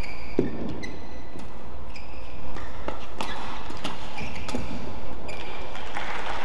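Badminton rally: sharp racket hits on the shuttlecock every second or so, with short high squeaks of shoes on the court, over a steady low hum.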